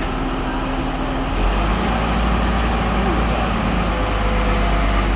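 Heavy diesel engine of a large crane running steadily, getting louder and deeper about a second and a half in.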